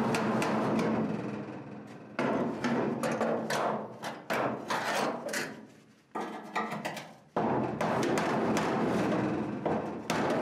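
Hammer-and-dolly work on a steel quarter panel's wheel-arch lip: a quick run of hammer taps on the sheet metal, then single heavier hits every second or two, each trailing off.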